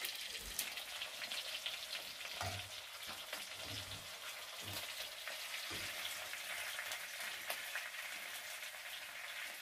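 Meat frying in hot oil: a steady sizzle with fine crackles and spits.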